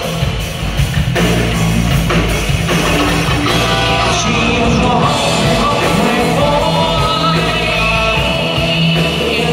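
Live rock band playing loudly through a PA: drum kit, electric bass and electric guitars.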